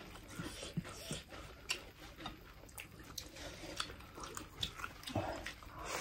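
Close-up eating sounds of people chewing goat meat and rice with their mouths: soft wet chewing and scattered lip-smacking clicks, with a louder mouth sound just before the end.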